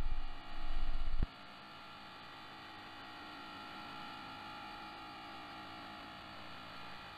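Shortwave AM broadcast channel heard through a software-defined radio receiver before the programme starts. A loud, pulsing low hum cuts off abruptly about a second in, leaving a steady hiss and hum with faint whistling tones.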